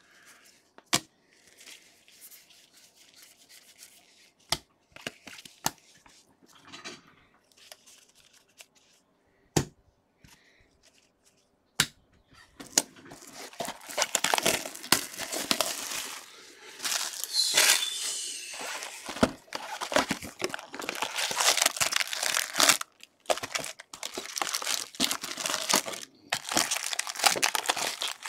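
Plastic wrapping crinkling and tearing as a sealed box of Bowman baseball card packs is opened and its wrapped jumbo packs are handled. It is a few scattered light taps at first, then steady crinkling from about a third of the way in.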